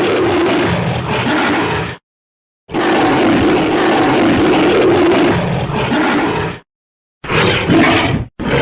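Monster roar sound effects from the 1933 RKO film King Kong. One roar ends about two seconds in, a long roar of about four seconds follows, and two short roars come near the end, each separated by dead silence.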